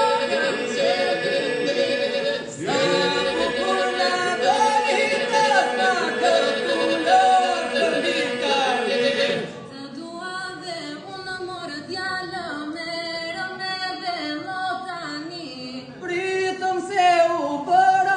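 Unaccompanied southern Albanian polyphonic folk singing by a small mixed group, men's voices holding a steady drone under moving melody lines. About halfway through the drone drops out and the singing turns softer, then the fuller group comes back in near the end.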